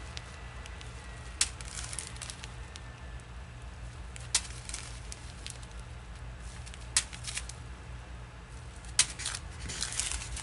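Small plastic zip-top bags of diamond-painting drills crinkling as they are handled: a few sharp crackles a couple of seconds apart, then a denser flurry of crinkling near the end, over a steady low hum.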